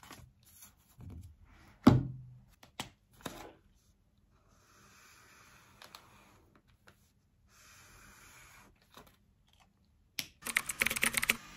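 Scattered knocks and clicks, the loudest a sharp thump about two seconds in, then a fast burst of typing on a computer keyboard near the end.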